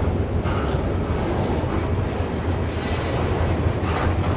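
Double-stack container train's well cars rolling past: a steady low rumble of steel wheels on rail, with a couple of brief clatters about half a second in and near the end.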